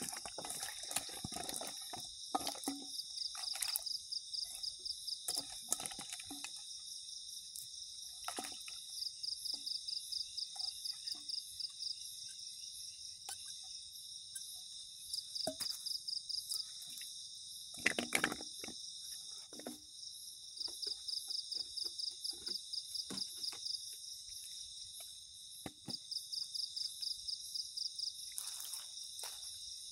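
Night insects chirping in a steady high chorus, with a louder, rapidly pulsed trill coming in bouts of two to three seconds about five times. Over it, scattered soft knocks and splashes of peeled cassava pieces being handled and washed in a metal pot of water, the loudest about eighteen seconds in.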